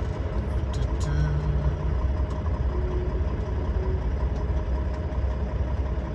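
Semi truck's diesel engine running steadily at low speed, heard from inside the cab as a low drone.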